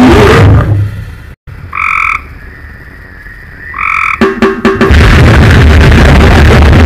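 Loud, dense harsh-noise music breaks off about half a second in, giving way to recorded frog calls: two short croaks about two seconds apart over faint hiss, then a quick rattling run of calls. The harsh noise comes back near five seconds.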